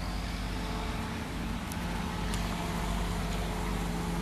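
A steady engine hum at an even pitch, over a constant wash of traffic-like noise.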